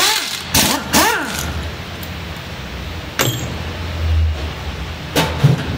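Several sharp knocks and clatters, with a few short squeaky glides in the first second and a half, over a low steady hum.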